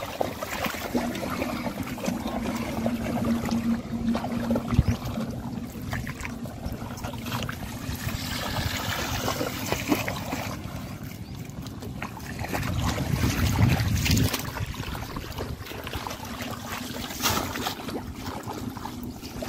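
Muddy shallow water sloshing and splashing as hands grope through it and feet wade, with many small splashes and clicks. A low steady hum sits underneath, strongest in the first few seconds, and a louder low rumble comes about two-thirds of the way through.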